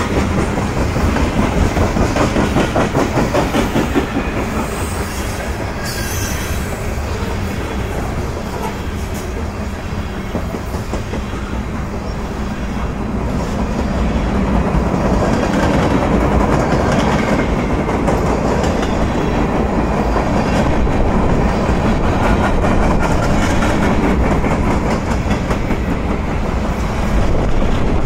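Freight cars of a passing BNSF manifest train (covered hoppers, centerbeam flatcars) rolling by: a steady rumble of steel wheels with a rapid clickety-clack over the rails, louder from about halfway through.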